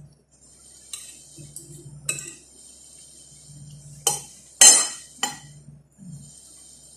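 Spoon and fork clinking and scraping on a plate during a meal: a handful of separate sharp clinks, the loudest a longer scrape about two-thirds of the way through.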